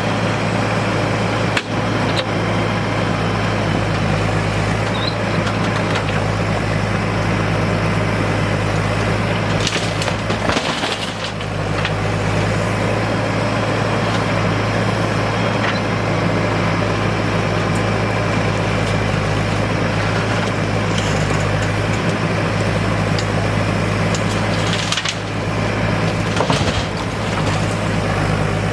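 Backhoe loader's diesel engine running steadily at a constant pitch, with a few knocks and clatters as stones are loaded.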